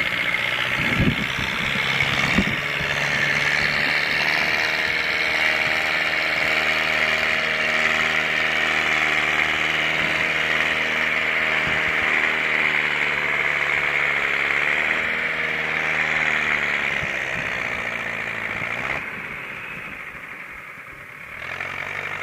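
Diesel engines of rice-field machinery (combine harvester and tractor) running steadily under load while towing through mud, the engine note shifting slightly in pitch. Two sharp knocks come about one and two and a half seconds in, and the engine sound drops briefly near the end.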